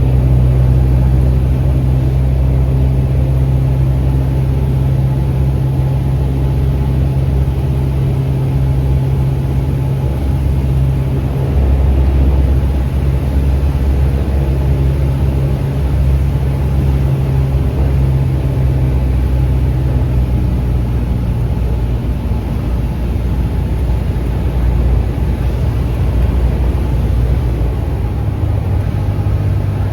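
Cessna 172 Skyhawk's piston engine and propeller droning steadily in flight, its pitch dropping slightly near the end.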